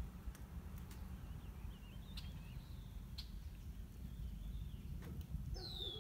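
Lakeside bird sounds: faint wavering chirps and a few sharp clicks, then a clear falling whistle near the end, over a steady low rumble.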